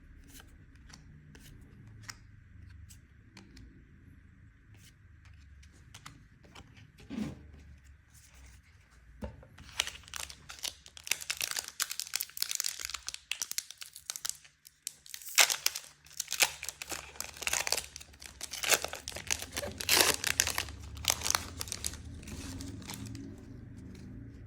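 A Magic: The Gathering collector booster pack's foil wrapper being torn open and crinkled, with a long run of loud crackling and tearing from about ten seconds in until shortly before the end. Before that there are faint, scattered clicks of handling.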